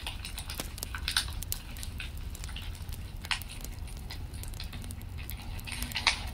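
Fireplace fire crackling: irregular sharp pops and snaps over a low steady rumble, the pops coming thicker near the end.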